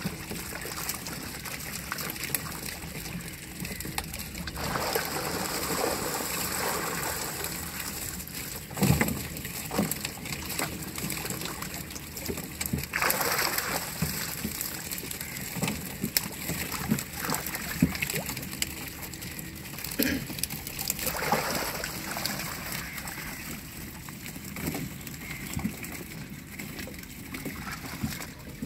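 Water sloshing and splashing as a person wades and sweeps a round hand net through waist-deep water, with a few louder splashes.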